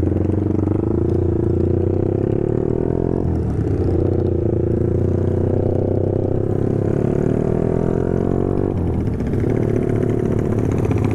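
Honda CB150R's single-cylinder engine through an aftermarket BSS exhaust, pulling while riding: its pitch climbs steadily, drops at a gear change about three seconds in, climbs again, and eases off near the end.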